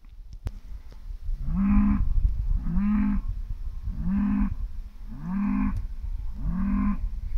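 A farm animal calling over and over: short calls about a second apart, each rising briefly then holding its pitch, starting about a second and a half in.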